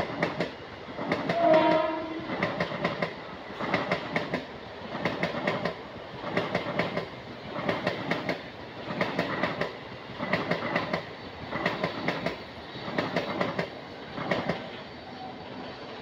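Mumbai local electric multiple-unit train running past, its wheels clattering over rail joints in a regular clickety-clack about every second and a quarter. A short horn note sounds about a second and a half in, and the clatter fades near the end as the train draws away.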